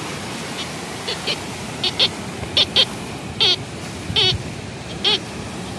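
Tianxun TX-850 metal detector beeping as its coil sweeps over a buried target: about ten short high-pitched beeps, some in quick pairs, over the steady wash of surf.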